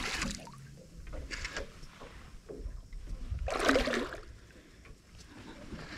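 A hooked fish splashing at the surface beside a small boat: a few scattered splashes, the loudest about two-thirds of the way through, over a low rumble.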